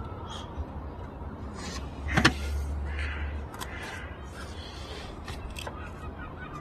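Handling noises as a turbo crossover pipe and its clip are worked into place in a car's engine bay: scattered clicks and rustling, with one sharper knock about two seconds in followed by a brief low rumble.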